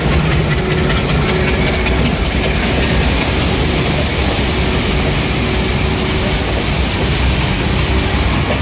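ALCO-built Class M10 (Indian WDM3D) diesel locomotive, a 16-cylinder ALCO 251 engine, running with a steady low rumble as it hauls passenger coaches past. Over it lies a dense hiss of heavy rain and tyres on the wet road.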